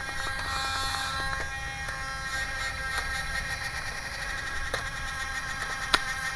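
A Nerf blaster fires once with a sharp click about six seconds in, over a steady faint hum of several tones, with a few fainter clicks earlier.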